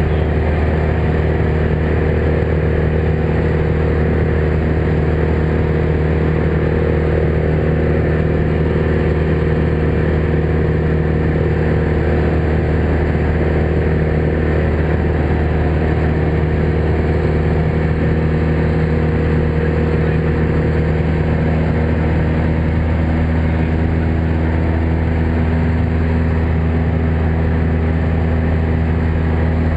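Cessna 172's piston engine and propeller in level cruise flight, a steady low drone heard from inside the cabin.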